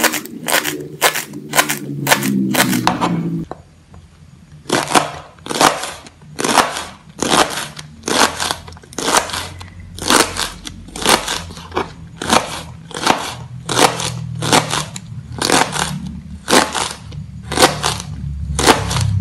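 Kitchen knife slicing young petai Cina (lead tree) pods on a plastic cutting board: a steady series of crisp chops, each blade stroke cutting through and striking the board, about two to three a second with a short break about four seconds in.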